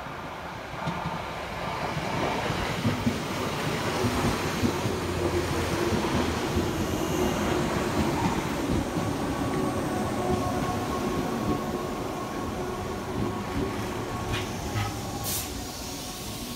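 Six-car Tobu Urban Park Line electric commuter train pulling into the station past the platform: wheels rumbling and clicking over the rails, growing louder over the first few seconds, then easing as it slows, with a steady squeal joining in during the second half.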